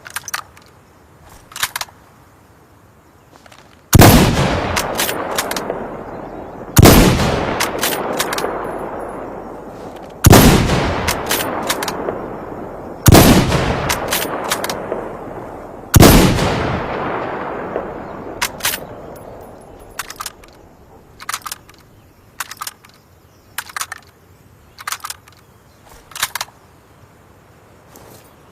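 Mosin-Nagant bolt-action rifle firing five shots about three seconds apart, each crack followed by a long echo dying away. Short sharp clicks come before the first shot and in a run after the last one.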